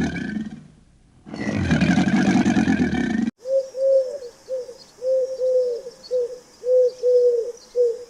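A deep animal call ends about half a second in and comes again for about two seconds. Then, after a cut about three seconds in, a pigeon coos: a series of short, soft, rising-and-falling coos in small groups.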